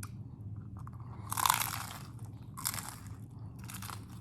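Close-up chewing of a crunchy hard-shell taco. There is a loud crunch about a second and a half in, then two shorter crunches.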